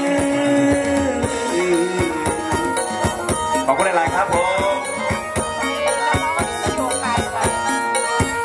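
Live band music in an instrumental passage: a held melody over a steady, quick beat of sharp drum hits.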